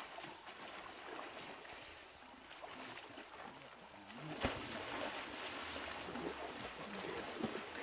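Faint water sloshing and splashing as hippos wade and charge through a shallow river, with a sharper splash about four and a half seconds in and the water louder after it.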